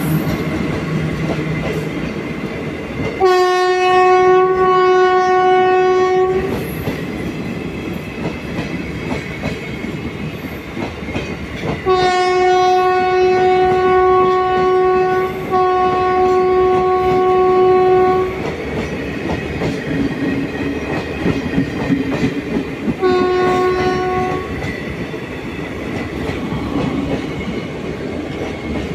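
WAG-5 electric locomotive's horn sounding in long, steady single-pitched blasts: one a few seconds in, two back to back in the middle, and a short one near the end. Under the horn, the parcel vans' wheels rumble and clatter steadily over the rail joints as the train rolls slowly past.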